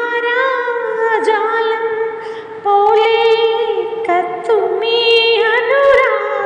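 A woman singing a slow Malayalam song solo in long held notes, with small ornamental bends where one note turns into the next.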